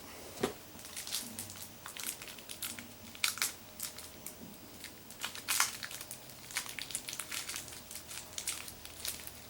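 Packaging crinkling and crackling in irregular bursts as it is handled and pulled open to free a small Beyblade disc.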